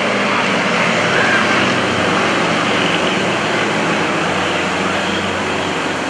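Nine-cylinder radial engine of an aerobatic trainer droning steadily as it flies past and pulls up, over a broad rushing noise.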